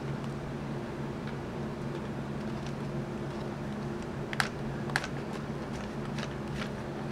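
Plastic clicks and clacks from a Deerma DX115C handheld vacuum being taken apart by hand, with two sharper clicks a little past the middle as a thumb works the floor brush head's release latch. A steady low hum runs underneath.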